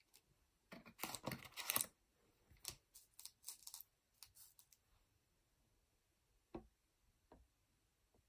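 Foil-wrapped Pokémon booster packs crinkling and sliding as they are handled and set down on a table, in several short bursts, the loudest about a second in. Two soft knocks follow near the end.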